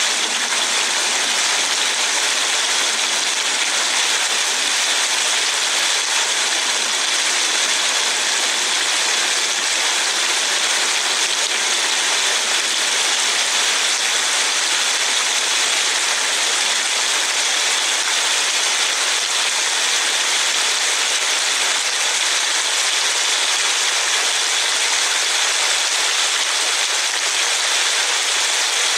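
Heavy rain falling on a car, heard from inside the cabin as a steady, even hiss.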